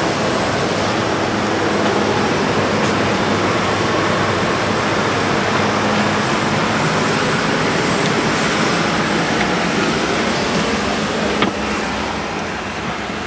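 Steady rushing cabin noise inside a Boeing 787 airliner, with one sharp click near the end.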